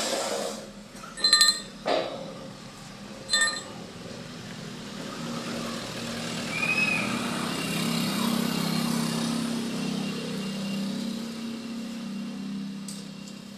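Steel parts struck together twice, each a sharp clink that rings on. These are followed by a low, steady machine drone lasting several seconds.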